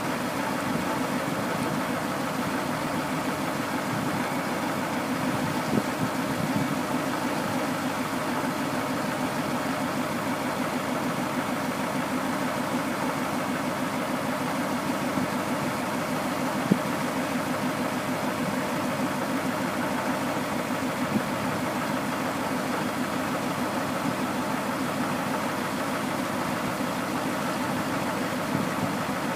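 Yard tractor's engine running steadily at idle while it drives the end dump trailer's five-stage hydraulic hoist, raising the steel box, with a few short clicks now and then.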